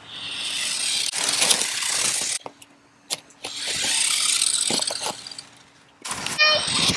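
Toy remote-control car's small electric motor whirring as it drives, in short bursts that stop and start about three times, with a few clicks and knocks in the gaps.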